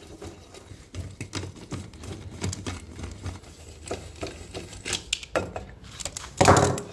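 Scattered light clicks and knocks of hand tools and metal engine parts being handled on a workbench, with one louder knock near the end.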